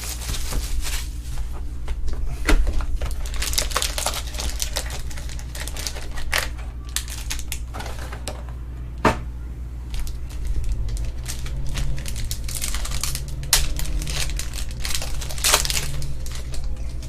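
Trading cards and their packaging being handled: scattered sharp clicks and short bursts of crinkling plastic, over a steady low hum.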